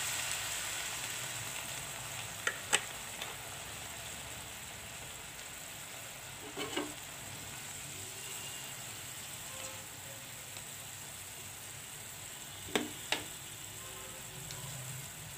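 Vegetable curry sizzling in a frying pan just after a little water has been added, the sizzle fading over the first few seconds. A steel spoon stirring it knocks and scrapes against the pan: a few sharp clicks about two and a half seconds in, a short scrape near the middle, and two more clicks near the end.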